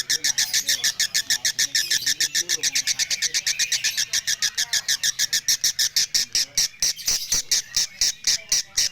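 Lovebird singing a 'konslet' song: a long unbroken run of rapid, sharp, shrill notes at about eight a second, without a pause.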